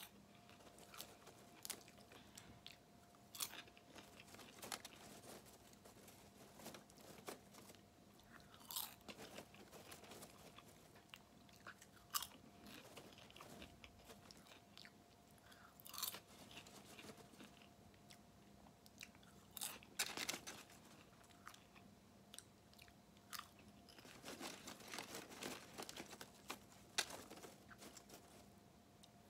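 Close-up chewing and crunching of Jiffy Pop butter-flavoured stovetop popcorn, eaten by the handful, with irregular short crunches throughout and busier stretches about two-thirds of the way in and near the end.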